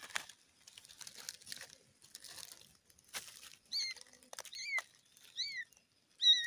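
A young kitten's high-pitched meows: four short mews, each rising and falling, in the second half. Before them, a soft rustling of dry leaves under its paws.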